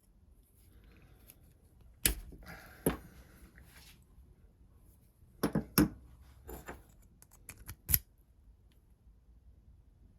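Small metal parts clicking and scraping as a tool works at a Givi lock cylinder, trying to pull out one of its spring-loaded lock plates. There are about five sharp clicks, spread out with pauses between them, and light scraping around them.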